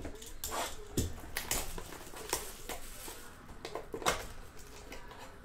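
Trading-card boxes and packs being handled and opened by hand: rustling and crinkling of cardboard and wrapper with small taps, and a sharper knock about a second in and again about four seconds in.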